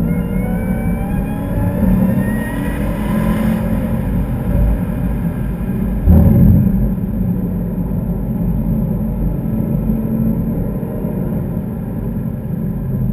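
Cadillac CTS-V Wagon's supercharged V8 heard from inside the cabin, climbing in pitch under hard acceleration for the first few seconds, then running steadily. A sudden loud thump comes about six seconds in.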